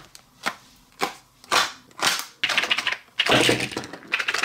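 Small plastic dropper bottles of UV resin being handled and set down out of a clear plastic box: a run of separate clicks and knocks about twice a second, then a longer, louder stretch of clatter near the end.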